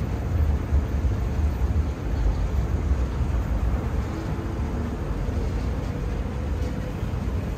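Steady low rumble of outdoor ambience, with no clear single event standing out.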